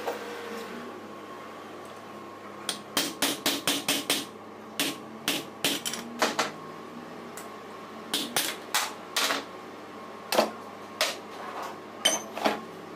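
Sharp metal-on-metal knocks: a hammer striking an alternator's aluminium end housing held in a bench vise. A quick run of about nine blows starts around three seconds in, followed by scattered single and paired blows.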